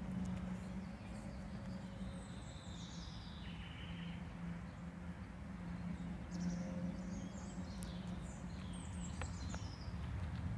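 Birds chirping in two short bursts of high, gliding calls over a steady low outdoor background hum.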